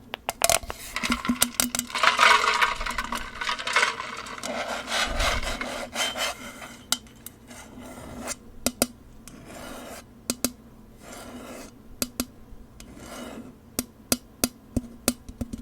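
Close-miked ASMR handling sounds: rubbing and scraping swishes through the first few seconds, then a long run of sharp clicks and taps with short rustles between them.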